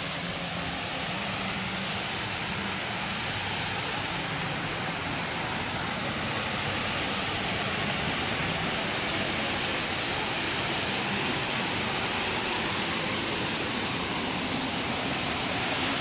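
Small waterfall pouring over a rock ledge into a plunge pool: a steady rush of falling water that grows slightly louder.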